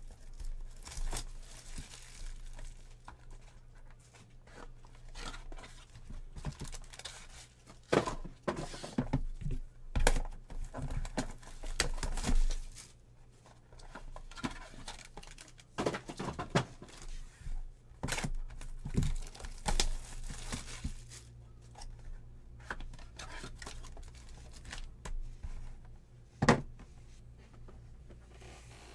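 Plastic wrapping on a box of Topps Inception baseball cards crinkling and tearing as it is stripped off, with irregular rustles and light knocks from handling the box and wrapper on the table. A single sharp knock near the end is the loudest sound.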